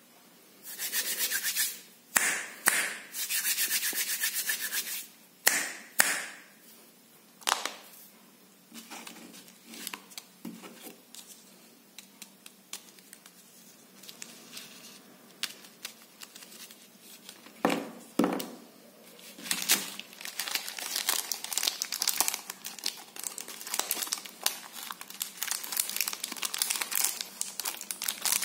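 Plastic chocolate-bar wrappers crinkling and rubbing as they are handled, first in separate short rustles, then almost without pause over the last several seconds.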